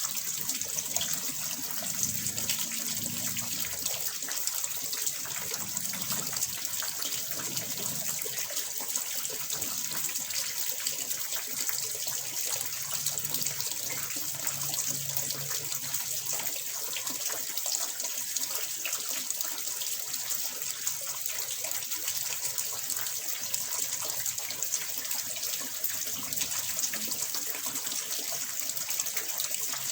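Water pouring and splashing steadily into a fish pond, an even, unbroken rush of falling water.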